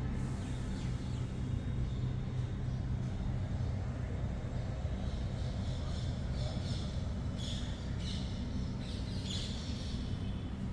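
Steady low rumble with a run of short high chirps over the second half.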